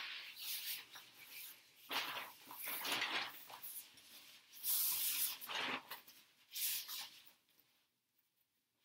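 Nylon rain fly of a dome tent rustling in a series of swishes as it is lifted and spread over the top of the tent.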